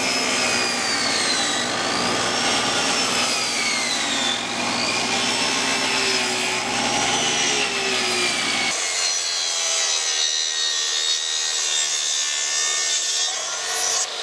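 Power saws cutting plywood: a steady saw whine whose pitch wavers as the cut is fed. About nine seconds in the sound changes abruptly to a Makita plunge track saw running along its guide rail through a plywood sheet.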